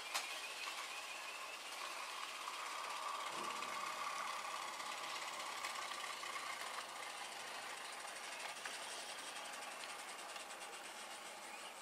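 1:24 scale electric model tram running along its garden track: a steady motor whine with the running noise of its wheels on the rails, a little louder near the middle and easing off toward the end.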